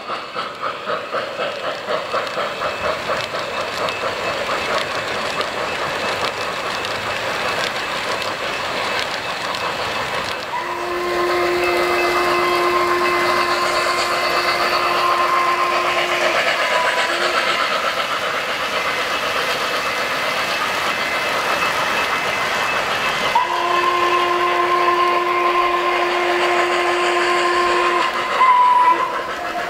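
O-gauge model steam locomotive's onboard sound system: rhythmic steam chuffing, then a multi-chime steam whistle blown in two long blasts, each followed by a short toot.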